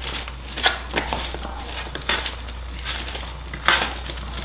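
Kitchen tongs tossing broccoli florets on a parchment-lined sheet pan: irregular rustling and crinkling of the paper, with a few sharper crinkles, the loudest a little after halfway.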